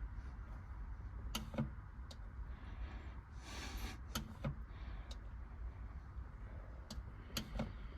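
Scattered light clicks and knocks of hands working a small hand-held fluid pump while topping up a convertible top's hydraulic pump reservoir, with a short hiss about three and a half seconds in, over a low steady rumble.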